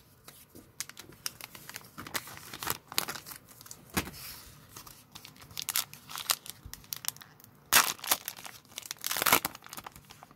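Foil trading-card booster pack crinkling as it is handled and torn open, with two louder crackles near the end.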